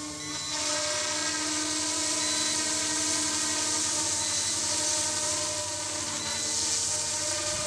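Electric RC scale helicopter, an Eachine E200 Pro Seahawk, flying overhead: a steady whine from its motor and rotor blades with a hiss above it, the pitch shifting slightly about half a second in.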